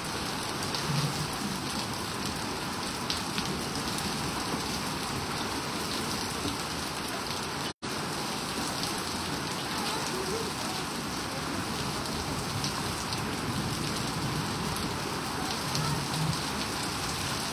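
Heavy rain falling steadily and splashing onto a waterlogged paved street, an even hiss of rain. The sound cuts out for an instant about eight seconds in.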